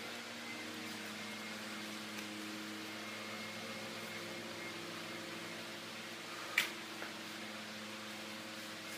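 Steady mechanical hum of a running machine in a small room, with a single sharp click about two-thirds of the way through and a lighter click just after it.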